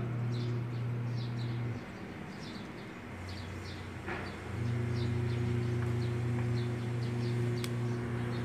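Steady low machine hum with a few overtones. It drops away just under two seconds in and returns louder at about four and a half seconds. Small high chirps like birdsong repeat about twice a second in the background, and there is a single soft knock near four seconds.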